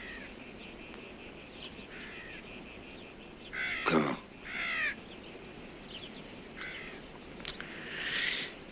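Crows cawing: a few scattered calls, the loudest pair about four seconds in, with fainter ones before and after.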